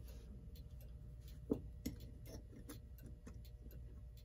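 Faint light clicks, about three a second, with one sharper tap about a second and a half in, over a low steady hum.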